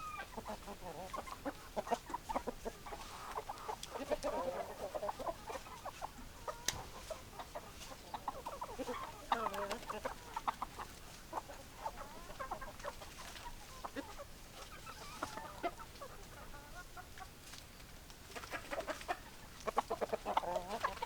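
Chickens clucking: a flock of hens giving many short, overlapping clucks, busier in stretches and rising again near the end.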